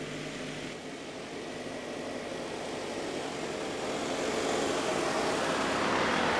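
Nissan X-Trail driving along a sandy track, its engine and tyres growing steadily louder as it approaches and passes close by about six seconds in.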